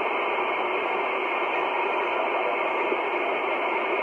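Kenwood R-1000 shortwave communications receiver putting out steady static hiss on an open HF channel with no voice on it, thin and narrow like a telephone line.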